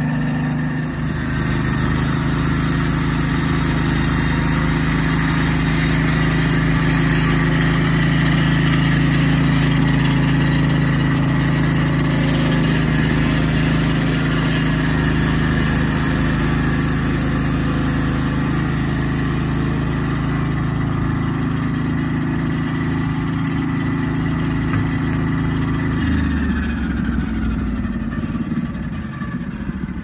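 Swing-blade sawmill's engine running at a steady high speed, driving the circular blade while it saws a Douglas fir log. About 26 seconds in, the engine and blade wind down, their pitch falling and the sound fading toward the end.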